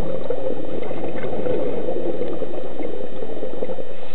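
Steady bubbling and gurgling heard underwater.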